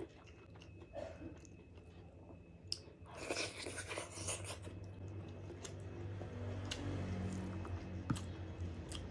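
Close-miked eating sounds: fingers squishing rice and curry together, then a mouthful taken about three seconds in and chewed, with moist chewing sounds and small clicks.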